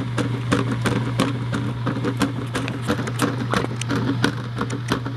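Washing machine running: a steady low hum with quick, irregular clicks and knocks, several a second, from things tumbling against the drum.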